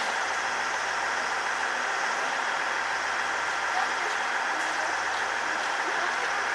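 Steady mechanical hum of railway equipment idling at a station, with one faint tick about four seconds in.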